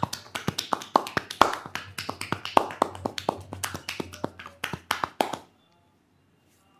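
Rapid percussive massage strokes, a barber's hands tapping and slapping in a quick, slightly uneven rhythm of about five strikes a second, stopping abruptly about five seconds in.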